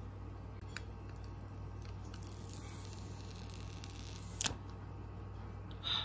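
Hands handling a new iPhone 11 and its plastic screen wrap: a soft rustle of the wrap about two to three seconds in, one sharp click about three quarters of the way through, and a brief squeaky rub near the end, over a steady low hum.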